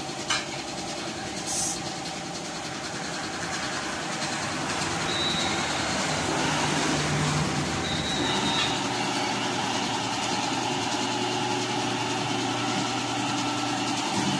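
Steady mechanical running hum of tire-shop machinery while a tire is worked off its rim on a tire-changing machine, with a sharp click just after the start.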